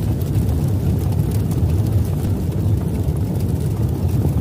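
A deep, steady rumble with no rhythm, a low sound effect carried under the animated subscribe title, thinning out just after the end.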